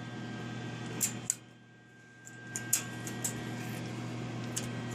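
Steady low electrical hum with a background whir, broken by a handful of short sharp clicks. About a second and a half in, the whir drops away for about a second, then comes back.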